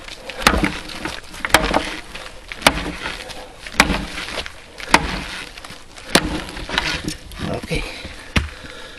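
Leveraxe lever axe striking a log held in a tyre, with the log splitting each time. There are about seven sharp cracks of steel on wood, roughly one a second, with a longer pause before the last.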